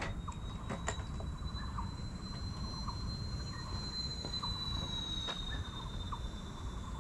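Outdoor ambience: a low rumble of wind on the microphone, with a thin, steady high-pitched tone that drifts slightly in pitch, scattered short faint chirps and a few small clicks.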